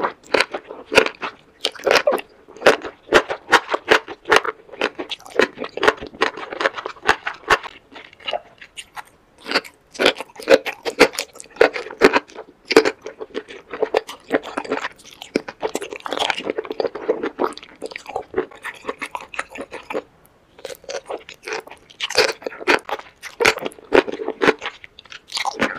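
Close-miked ASMR eating of sauce-coated enoki mushrooms: wet chewing and slurping with many quick, sticky mouth clicks and smacks, pausing briefly about twenty seconds in.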